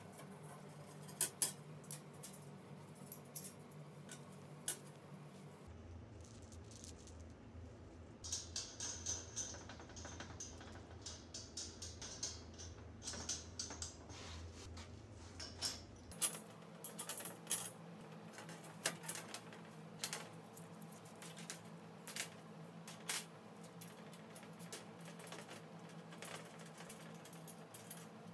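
Small metal parts clinking and tapping as stainless rods, washers and wing nuts are fitted and tightened on a perforated stainless fire-pit basket and its metal plate: scattered sharp clicks, with a busier spell of light metallic rattling in the middle.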